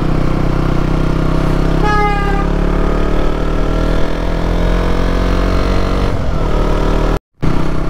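KTM motorcycle engine running while riding, its note slowly falling over a few seconds as the bike eases off. A short high-pitched tone sounds about two seconds in, and the sound breaks off briefly near the end.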